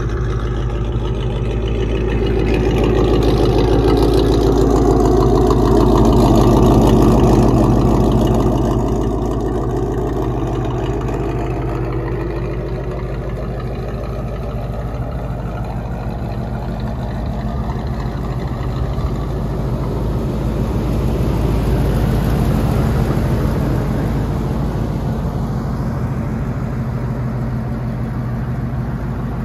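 The 454 TBI big-block V8 of a 1988 Chevy V30 pickup idling steadily, swelling a little louder for a few seconds early on and again about two-thirds through.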